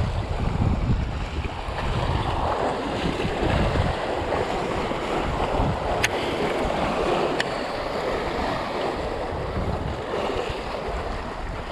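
Sea surf washing against a rock breakwater, with wind buffeting the microphone, heaviest in the first few seconds. Two brief sharp clicks sound about six and seven seconds in.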